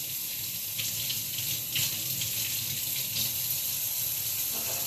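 Kitchen faucet running into the sink while raw chicken wings are rinsed under the stream, with a few brief splashes as the water hits them.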